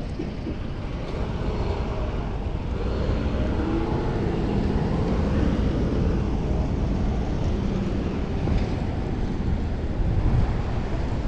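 Wind rushing over a chest-mounted action camera's microphone while cycling, mixed with city traffic noise; a passing motor vehicle's hum rises and fades in the middle.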